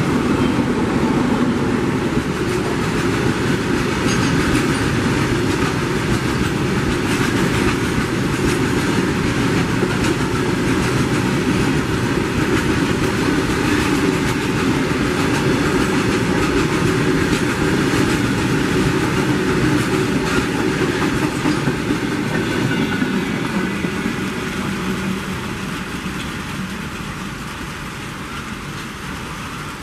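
Long freight train of open box wagons passing at speed: the steady running noise of steel wheels on the rails and the wagons rattling, fading over the last several seconds as the train moves away.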